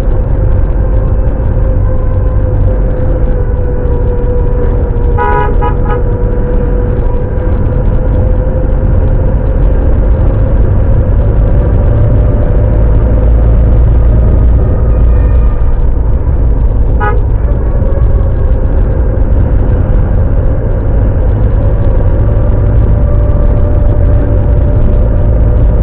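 A car driving on a winding road, heard from inside the cabin: a steady rumble of engine and road with an engine note that rises and falls a little. A car horn gives three quick toots about five seconds in and one short toot later.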